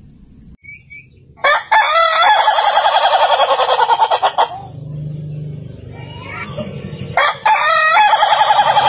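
A rooster crowing twice. A long crow of about three seconds starts about a second and a half in, and a second crow begins near the end, with a softer, lower sound between them.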